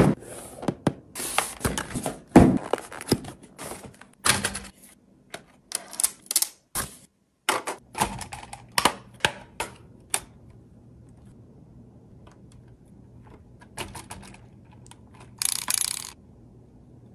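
Hands handling a boxed plastic RC model truck and its packaging: a quick run of clicks, taps and thunks over the first ten seconds, then a short hiss just before the end.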